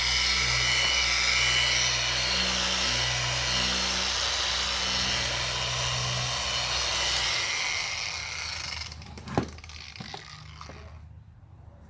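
Small electric polisher running steadily with a whine on a plastic headlight lens, then winding down and stopping about eight seconds in. A sharp knock follows, then a few light clicks as the tool is handled.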